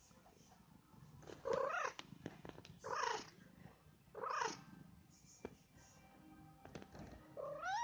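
Long-haired grey tabby cat purring close to the microphone, with three short calls about a second and a half apart and a rising call near the end.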